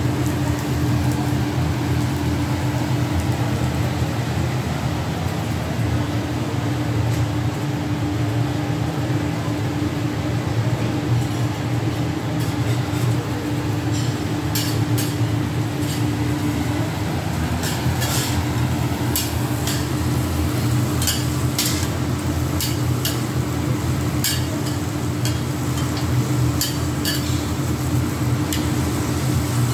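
Food sizzling on a flat-top steel griddle over a steady low hum. From about halfway on, metal spatulas click and tap on the griddle plate.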